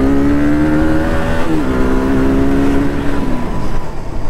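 KTM 200 Duke's single-cylinder engine pulling up through the gears: its pitch rises, drops at an upshift about a second and a half in, climbs again, then falls away as the throttle closes at about three and a half seconds.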